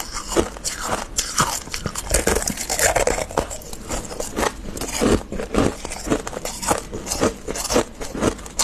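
Freezer frost being bitten and chewed, a close run of crisp crunches at about two a second.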